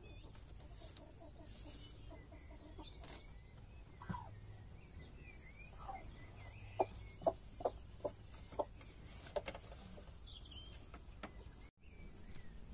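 Chickens clucking softly, with a quick run of about five short, sharp clucks in the middle and scattered quieter calls around them.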